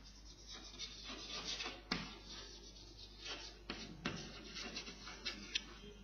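Chalk writing on a blackboard: a run of short, scratchy strokes broken by a few sharp taps of the chalk against the board.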